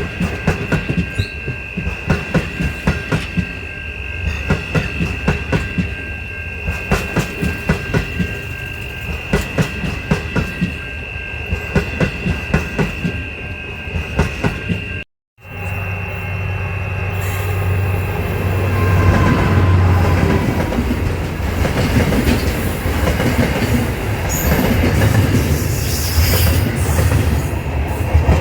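Train wheels clicking rhythmically over rail joints, with a steady high-pitched wheel squeal. About halfway through there is a brief cut to silence, then a louder, deeper rumble of a train running past.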